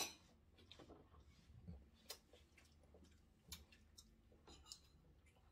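Quiet meal-table sounds: scattered light clicks and taps of utensils, dishes and king crab shell being handled, the sharpest click at the very start and a few fainter ones after.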